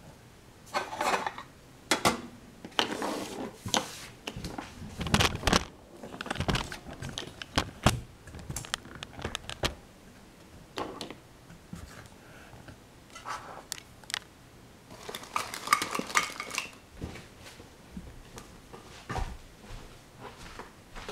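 Irregular clicks, knocks and clatter of hard objects being handled and set down, in bunches with quieter gaps between.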